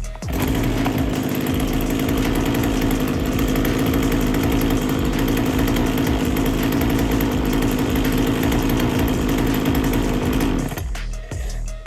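An old two-stroke chainsaw running at a steady speed during its test run after adjustment. It starts abruptly just after the beginning, holds an even pitch for about ten seconds, and cuts off about a second before the end.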